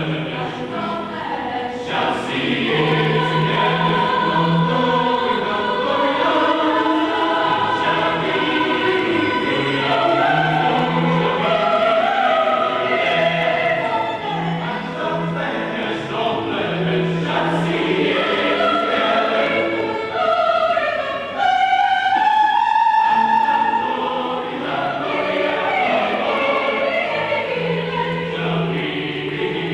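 Choir singing a choral piece in several parts, voices moving together in long held and shifting notes.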